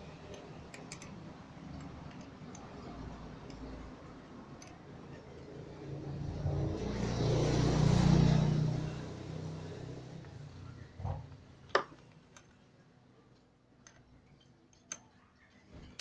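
A vehicle passing by, swelling to a peak about halfway through and fading away over a few seconds. Afterwards come a few sharp clicks and taps from hands working at a car battery terminal.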